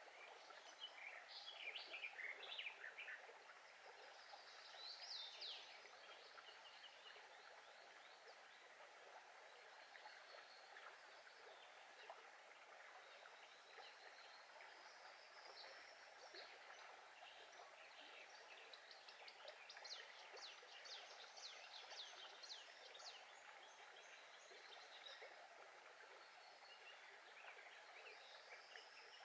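Faint, steady babble of a small brook, with birds chirping over it near the start and again in a quick run of song about twenty seconds in.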